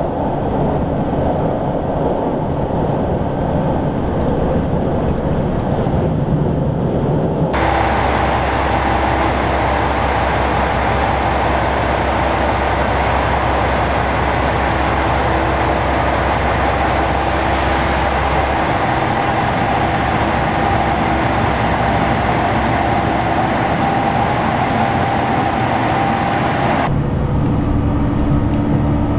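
Steady running noise of a JR Shikoku 2000 series diesel railcar, in three spliced takes: the train travelling, then standing at a station platform with a steady low hum that stops about two-thirds of the way through, then heard from inside the passenger car.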